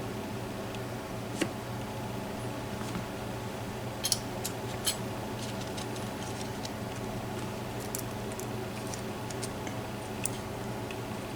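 Scattered small metallic clicks and taps of tools working inside a hand-made challenge padlock while it is being gutted, the loudest a few seconds in, over a steady low hum.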